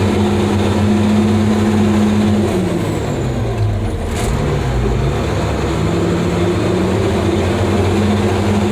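Diesel engine of a Badger 670 mobile excavator's carrier, an 8.3-litre Cummins inline-six, running under way on the road. Its note falls in pitch midway through, then climbs again.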